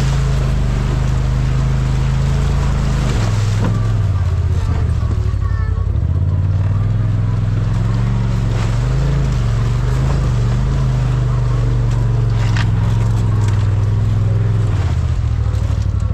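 Off-road vehicle engine running under way, its pitch dropping about three seconds in, then rising and falling with the throttle.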